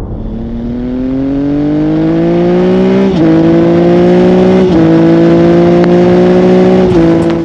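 A vehicle engine accelerating: its pitch climbs steadily, then drops sharply three times, as with upshifts through the gears.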